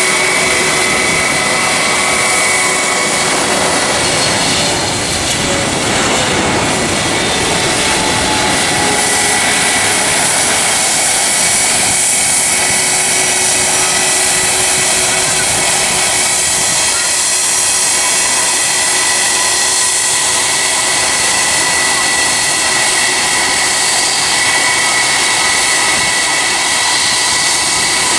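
Boeing 777 airliner's jet engines on final approach and landing: loud, steady jet noise with a high fan whine, and a pitch that falls a few seconds in as the aircraft passes close overhead.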